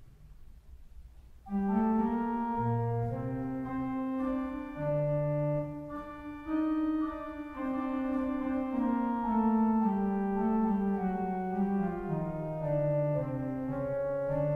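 Pipe organ playing a slow piece of held chords that change step by step, starting about a second and a half in, with low bass notes entering and dropping out.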